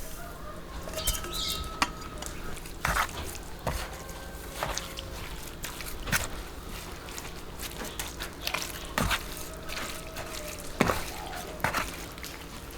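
Kitchen utensils clinking and knocking against bowls while seasonings are mixed: about ten separate sharp clicks at irregular intervals, some with a short ring.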